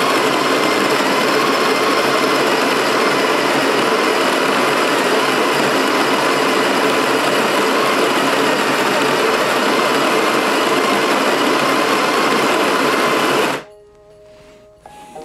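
Sage electric conical-burr coffee grinder grinding a 30 g dose of coffee beans: a loud, steady grinding noise that cuts off suddenly near the end when its 14.6-second timed dose runs out.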